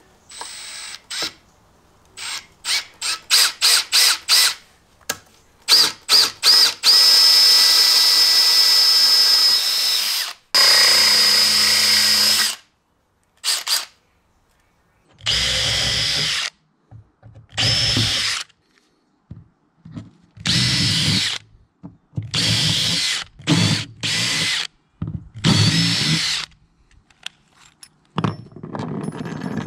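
Cordless drill boring holes through an aluminum square-tube crossbar with a twist bit. The motor whines in a quick string of short trigger pulses at first, then in longer runs of a few seconds each, with gaps between holes.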